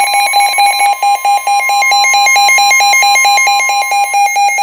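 Midland HH54VP weather radio sounding its alert for a severe thunderstorm warning: loud, rapid beeping over a steady warning tone that stops about four seconds in.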